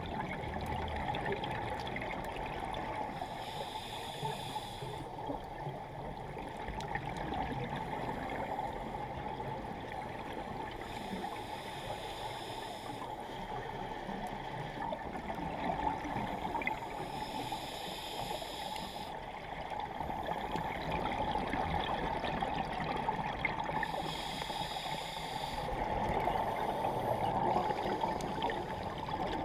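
Underwater sound of a scuba dive: a steady bubbling water noise, with a scuba regulator breathing in a high hiss four times, roughly every six or seven seconds.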